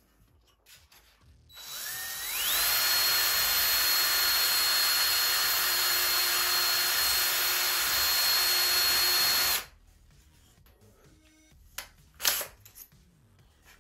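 Cordless drill spinning up with a rising whine, then running steadily for about seven seconds as it bores a 3/16-inch pilot hole through a wooden wing leading edge, and stopping abruptly. A sharp knock follows near the end.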